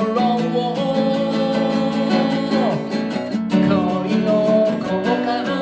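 Pop song instrumental passage: strummed acoustic guitar under a melodic lead line, with no sung words.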